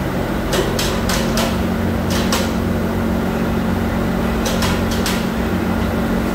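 Steady hum of factory machinery, overlaid by sharp metallic knocks and clinks from metal being handled among steel molds. The knocks come in clusters: several in the first second and a half, a pair a little after two seconds, and another group around five seconds in.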